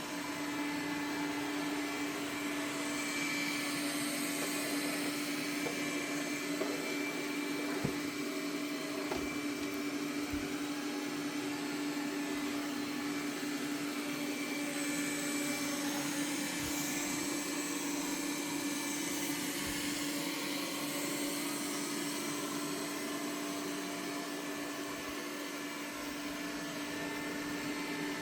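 Samsung Steam AI Ultra robot vacuum cleaning: a steady motor whir with a constant low hum tone, and a few faint knocks.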